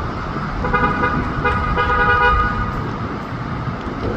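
Car horn sounding in two honks, the first about a second long and the second slightly longer, over a steady rumble of traffic and rain noise.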